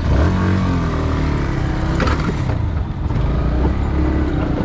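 Motorcycle engine running as the bike moves off along a dirt track. Its pitch falls over the first second or so, then holds steady.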